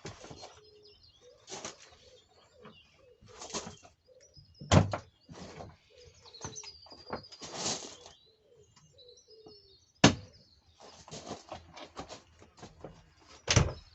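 Scattered knocks and clicks from hands and tools working at a BMW i3's plastic rear door panel and its fixings, with a sharp snap about ten seconds in. Birds chirp faintly in the background.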